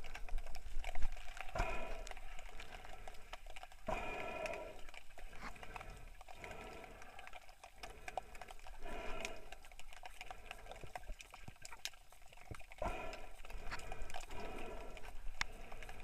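Muffled underwater sound heard through an action camera's waterproof housing: a steady crackle of small clicks, with a hollow pitched swell every two to four seconds.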